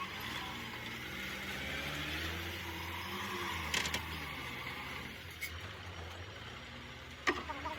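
Heavy truck engine running steadily, its pitch rising slightly and falling back midway, with two sharp knocks, one about four seconds in and one near the end.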